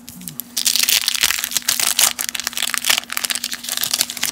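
A baseball card wax pack being torn open: the waxed paper wrapper crinkling and tearing in a dense crackle, starting about half a second in.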